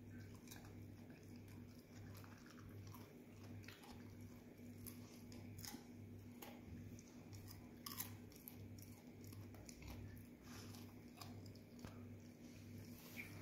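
A dog chewing, with soft, irregular crunches and clicks.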